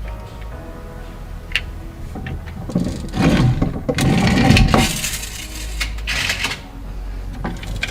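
Toy cars being handled: scattered clicks and small rattles, with a longer, louder clattering scrape in the middle and a shorter one near the end.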